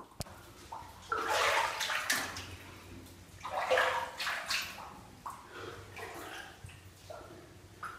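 Footsteps wading through shallow standing water on a flooded mine tunnel floor: a series of irregular sloshing splashes, the biggest about one and a half and four seconds in.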